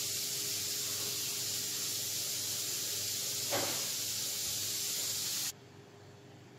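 Steady background hiss that cuts off abruptly about five and a half seconds in, leaving a faint room tone. There is a short soft swish about three and a half seconds in.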